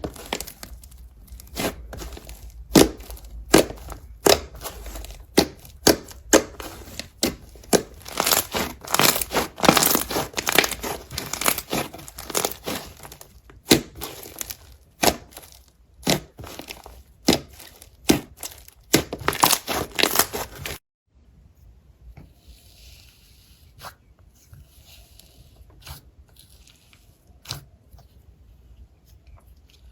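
Slime being squeezed, stretched and pressed by hand, making dense sticky crackling and popping. About two-thirds of the way through it drops suddenly to softer, sparser clicks.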